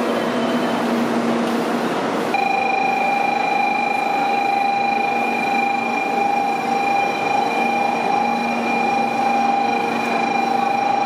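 An electronic platform bell starts ringing about two seconds in: one steady, unchanging high tone that does not let up, typical of a Shinkansen platform departure bell. Under it is the general bustle of a crowd of passengers walking along the platform.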